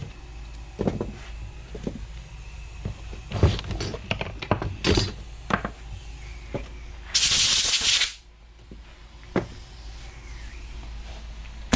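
Small objects and tools handled on a workbench: scattered clicks, knocks and rattles, with one short hiss lasting under a second a little past the middle.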